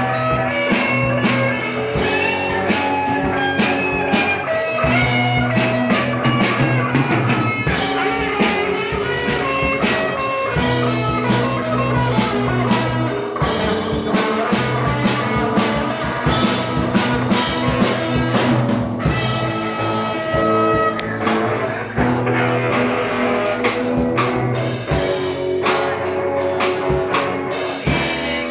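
Live rock band playing: electric guitars with a lead guitar picking melodic lines over the rhythm, with drums keeping a steady beat.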